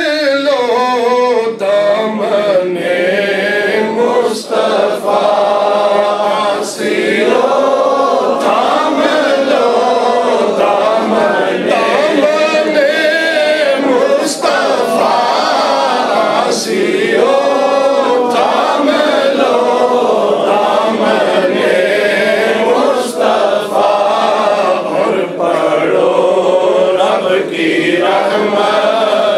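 Men chanting a devotional naat together, with a lead voice through the microphone and other male voices joining in.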